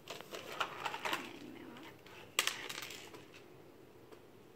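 Toy packaging of card and plastic being handled and turned over: a run of light clicks and rustles, then one sharper, louder crackle about two and a half seconds in.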